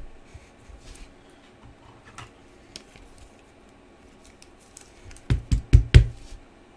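Hands handling a trading card and a clear rigid plastic card holder on a tabletop: light rustles and ticks, then a quick run of four or five sharp plastic clacks about five seconds in.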